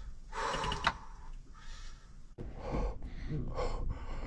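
Camper door being opened a little for air, with handling noises and a sharp latch click about two and a half seconds in.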